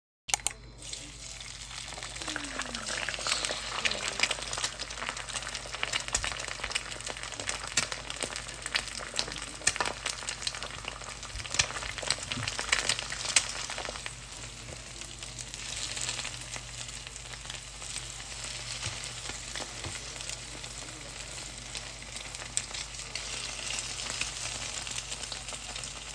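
Food sizzling in a frying pan: a steady hiss with many small sharp crackles and ticks throughout, joined now and then by the clicks and scrapes of stirring.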